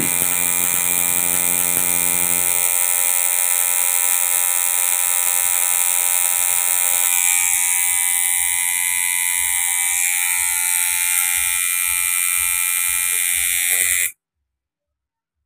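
Coil tattoo machine buzzing steadily as it runs a needle line into the skin, then cutting off suddenly near the end.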